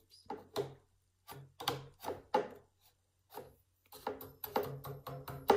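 Frame loom knocking against a desk as the weft is beaten down: a run of sharp knocks, scattered at first, then a quicker, steadier tapping of about three a second near the end.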